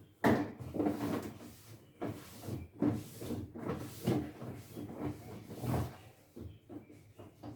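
Wet cloth wiping the plastic inside of a refrigerator, a string of rubbing strokes about one every half second to a second, with light knocks of the hand against the shelves and walls, easing off near the end.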